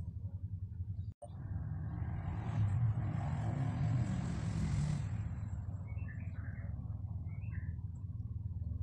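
A vehicle passes by, its noise swelling and fading over a few seconds above a steady low hum. A few short bird chirps follow near the end. The sound cuts out for an instant about a second in.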